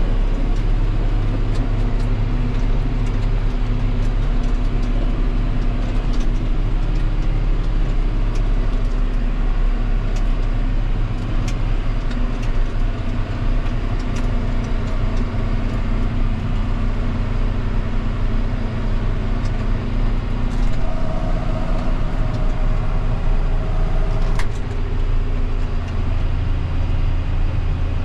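Combine harvester running at working speed, its engine and threshing machinery making a steady low drone with scattered small ticks. A higher steady tone joins for about four seconds late on and stops with a click.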